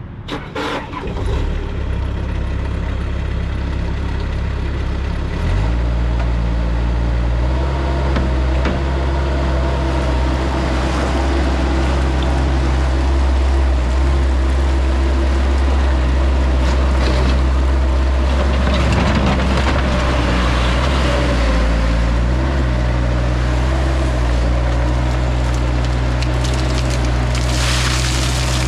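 Bobcat 773 skid steer's diesel engine running steadily, stepping up in speed and loudness about five seconds in as it is throttled up. A hiss comes in near the end.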